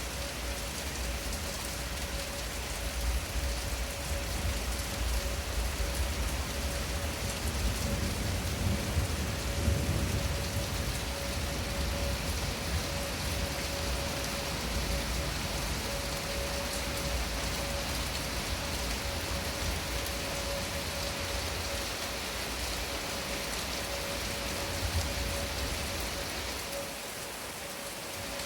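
Rain falling steadily during a thunderstorm, with a low rumble of thunder building and fading about eight to ten seconds in. Under it runs a faint steady tone from an outdoor tornado warning siren.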